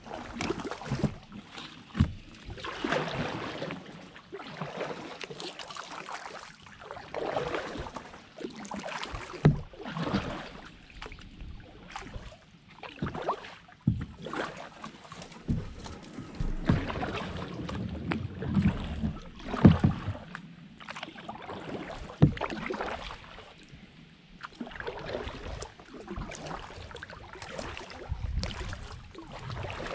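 Kayak paddle strokes in a shallow creek: uneven swells of splashing and dripping as the blades dip and lift, about one stroke every second or two. A few sharp knocks stand out above the splashing.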